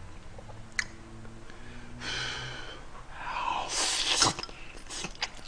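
A man slurping a forkful of spicy ramen noodles: one loud, noisy slurp at about three and a half to four seconds in. There is a light click of the fork on the bowl about a second in and a few more clicks near the end.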